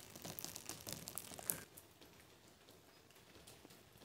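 Raindrops hitting wet ground in a dense scatter of small ticks, thinning after about a second and a half to a faint, even hiss of steady rain.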